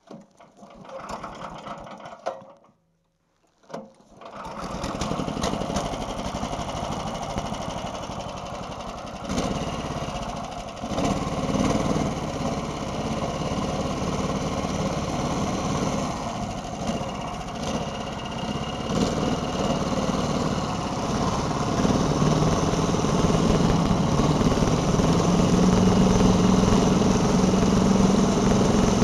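Small petrol engine of a homemade single-ski snow scooter running steadily, coming in about four seconds in after a short silent gap. It grows louder near the end as the scooter moves off along the trail.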